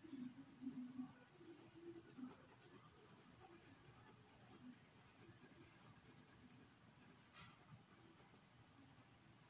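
Faint scratching of a graphite pencil shading on paper.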